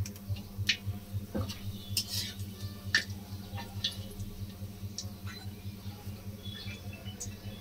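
Hot mustard oil in a kadai crackling with scattered small pops and spits as whole spices (bay leaves and a dried red chilli) are tempered in it, over a steady low hum.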